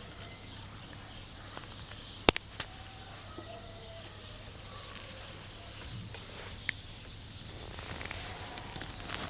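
A few sharp clicks of small hard objects: a loud one a little over two seconds in, a softer one just after, and another near the end, over a low steady hiss.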